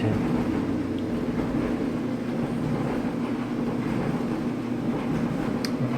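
Kenmore electric clothes dryer running: drum turning and blower fan giving a steady hum and rush, with a faint click near the end.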